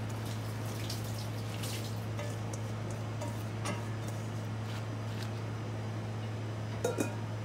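Cut napa cabbage being tipped from a stainless steel bowl into salt water in another bowl: soft wet rustling and small clicks over a steady low hum, with two light knocks near the end.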